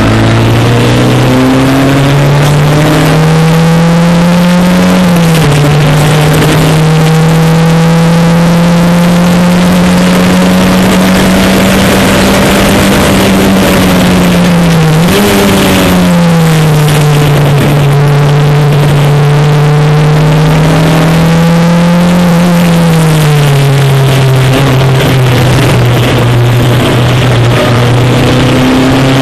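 Single-seater race car engine recorded on board at speed, very loud: its pitch climbs slowly under acceleration and drops sharply at gear changes about five seconds in and again near the end, with a brief dip in the middle, over steady wind and road noise.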